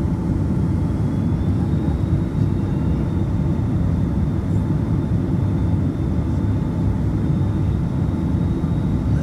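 Steady cabin noise of a British Airways Boeing 767-300ER heard from a window seat: the deep, even rumble of its Rolls-Royce RB211 engines and airflow. A faint high whine comes in about a second and a half in.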